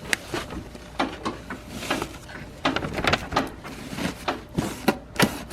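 Irregular clicks, knocks and small rattles of hand tools and parts being handled while a fog light assembly is taken out, with the sharpest knocks near the end.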